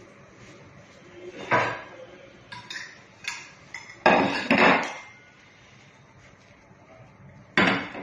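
Kitchenware knocking and clattering: a ceramic plate set down on the counter and a glass mixing bowl and spatula knocking against it. There are several separate knocks, the loudest pair about four seconds in and another sharp one near the end.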